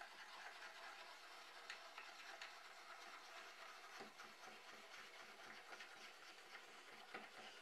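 Near silence, with faint scattered soft ticks and rubbing from a hand-cranked blade-tilt mechanism. A greased threaded rod turns and tilts the saw's motor unit on plywood trunnions.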